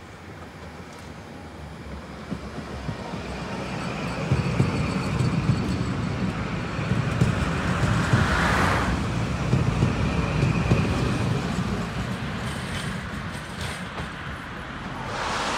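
A tram passing by: the rumble of wheels on rails builds over several seconds, peaks around the middle with a faint high whine and a brief hiss, then fades away.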